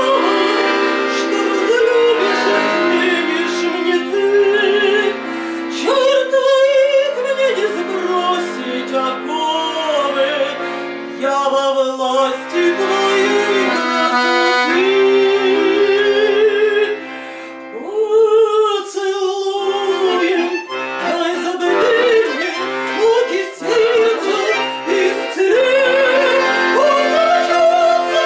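A singer with strong vibrato performing an old Russian romance to instrumental accompaniment.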